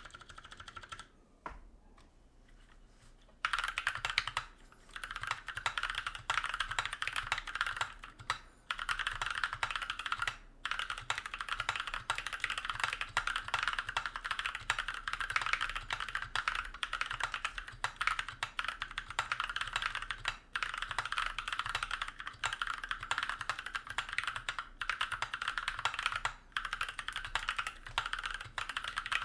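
Fast typing on a Tofu HHKB mechanical keyboard with NovelKeys Blueberry tactile switches and MKUltra foam fitted under the plate: a dense run of keystroke clacks, which the owner hears as deeper and more thocky, with no spring ping. A short lull comes about two seconds in, then steady typing resumes with only brief breaks.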